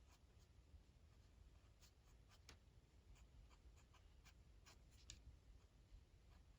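Faint, irregular taps and strokes of a stylus on an iPad screen while drawing, a little denser toward the end.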